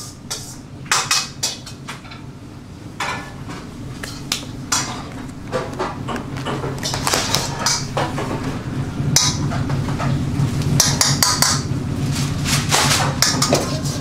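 Clear plastic takeaway containers and their lids clicking and knocking on a wooden counter while being packed, many short sharp clicks. Under them a steady low kitchen hum that grows louder from about a third of the way in.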